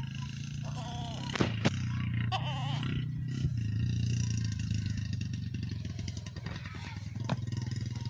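A small engine running steadily with a low, fast throb, with two sharp clicks about a second and a half in and a short wavering call between two and three seconds in.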